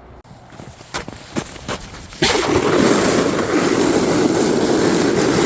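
A few faint knocks, then about two seconds in a loud, steady rushing and scraping noise starts suddenly: a sled sliding down a snowy slope, with wind across the microphone.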